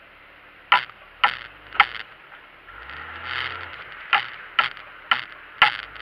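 Regular mechanical ticking, sharp clicks about two a second, broken by a short swell of vehicle noise with a low hum about three seconds in, after which the clicking resumes.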